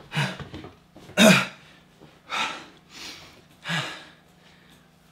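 A man clearing his throat and breathing out in five short, noisy bursts without words, the loudest about a second in.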